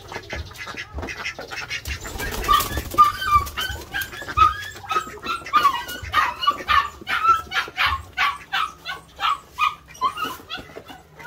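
Animals calling over and over in short sharp calls, about two a second, growing loud a couple of seconds in.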